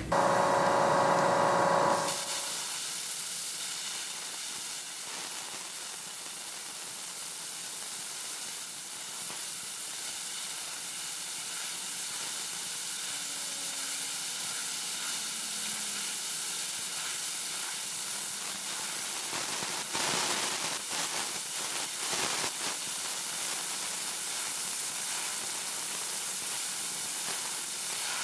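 Arccaptain Cut 50 plasma cutter cutting 3/4-inch steel at 50 A and 60 psi: a steady hiss of the arc and air jet, with some crackling about twenty seconds in. It opens with a loud buzzing tone for about two seconds.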